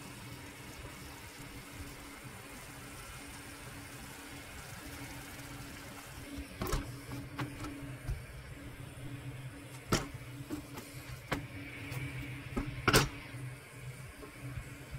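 Steady low kitchen hum, with a few sharp knocks and clicks in the second half as cookware and bread are handled on a gas hob; the loudest knock comes about two seconds before the end.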